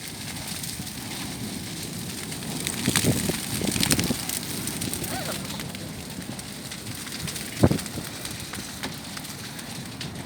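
A large fire crackling in a strong wind, with a steady rush of noise and scattered pops; a sharp knock stands out about three quarters of the way in.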